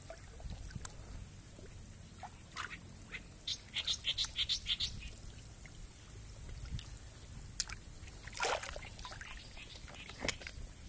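Water splashing and trickling around a person wading waist-deep through a flooded water spinach patch, with a quick run of small splashes a few seconds in and a louder splash later.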